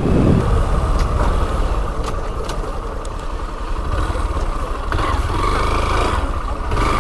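Yamaha XTZ 250 Lander's single-cylinder engine running steadily while the motorcycle is ridden, a low rumble mixed with road noise.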